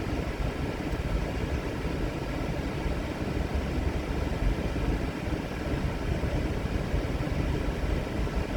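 Loud snoring: a continuous low rumble that barely eases between breaths.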